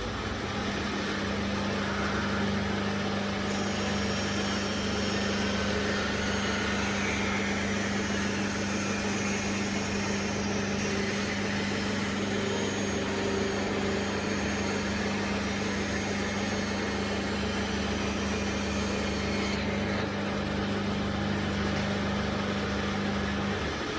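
Old Kirchner bandsaw running with a steady electric hum. From a few seconds in to about twenty seconds a brighter hiss rides over it, and the hum drops away near the end.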